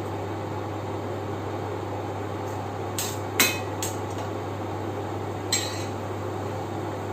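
Kitchen clatter: a steady background hum, broken by sharp clinks of a pot or dishes, three close together about three seconds in and one more a little past halfway.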